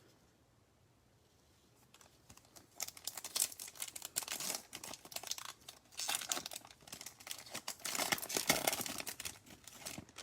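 A Topps Chrome trading-card pack's foil wrapper being torn open and crinkled: a dense, crackly rustling that starts about three seconds in.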